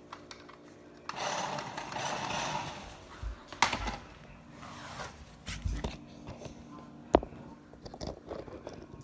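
Radio-controlled toy car's electric motor and wheels whirring for a second or two, then scattered knocks and clatter, with one sharp knock about seven seconds in.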